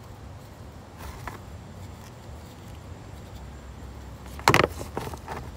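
Drain plug and hands working at a plastic oil drain pan under the motorcycle while the plug is taken out by hand: a few faint knocks, then a short sharp clatter about four and a half seconds in, over a low steady hum.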